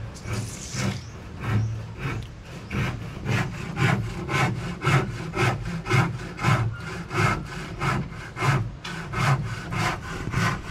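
Handsaw cutting through wood in steady back-and-forth strokes, about two a second.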